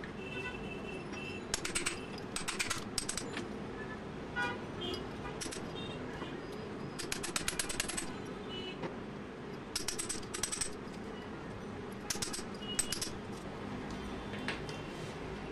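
Hammer tapping a steel chisel, metal on metal, in short clusters of quick strikes while chipping old mortar and rust from the rim of a tiled floor drain opening.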